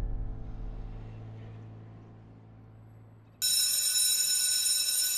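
Soft piano music dies away. About three and a half seconds in, a loud, shrill electronic alarm tone starts suddenly and rings steadily.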